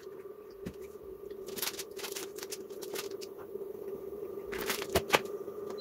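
Foil and paper wrappers of chocolate bars crinkling and rustling as they are handled, in two spells, about a second and a half in and again near five seconds. A steady hum runs underneath.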